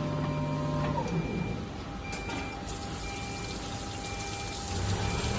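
Stone CNC countertop cutting machine's motors humming; one motor winds down about a second in and another steady whine takes over, while a short electronic beep repeats about once a second.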